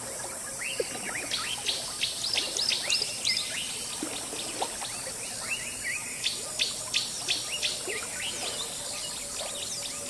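Jungle ambience: birds calling in quick runs of short chirps and whistles over a steady high hiss of insects. The calls thin out near the end.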